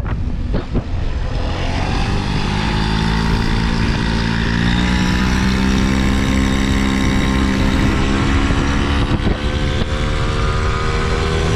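A combustion engine running, its pitch climbing slowly over a few seconds and then holding steady, with a few short knocks near the start and about nine seconds in.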